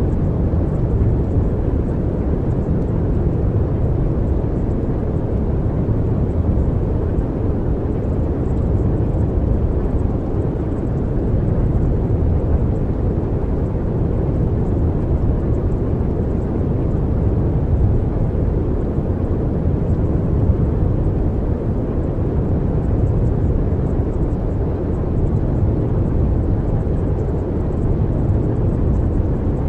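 Steady low rumbling noise, even and unchanging, with no tones or rhythm: the masking noise bed of a subliminal track.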